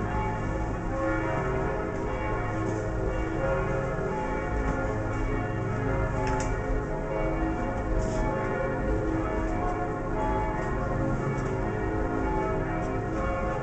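Church bells pealing: several bells ringing together in a continuous, overlapping peal at a steady level.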